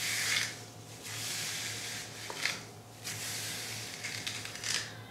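Tamebella ZaZa double-sided detangling brush pulled through type 4 coily hair in several strokes, each a crackling, rasping swish. It has a pulling sound that she fears is tearing her ends, though she allows it may not be doing much pulling and the ends may just need a trim.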